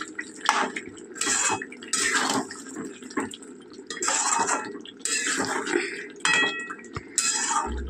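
Metal spatula stirring and scraping through chicken curry in a cooking pot, in irregular strokes, with a short ringing clink of metal on the pot about six seconds in.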